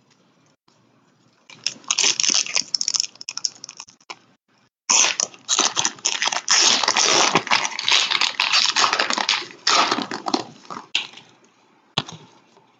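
A foil trading-card pack wrapper crinkling and tearing as it is ripped open by hand, in uneven bursts that get denser and louder from about five seconds in until about eleven, with a single sharp click shortly before the end.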